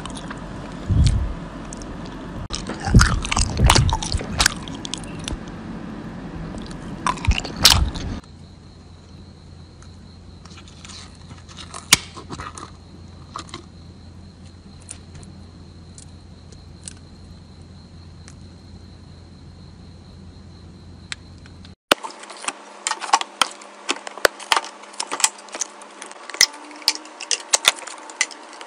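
Slime being poked, pressed and squished, a run of short sticky clicks and pops. About eight seconds in it turns quieter, with a faint steady high whine under scattered crackles, and the clicking grows busy again near the end.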